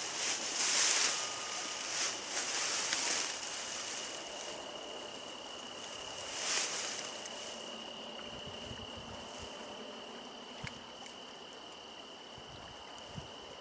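Insects, crickets by the sound, trilling steadily on one high note. Bursts of rustling hiss come over it in the first few seconds and again about six seconds in.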